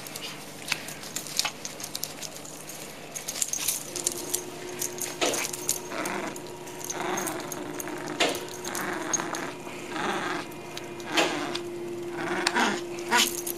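Metal tags on a dog's collar jingling and clinking in irregular bursts as a small poodle jumps and tugs at a toy.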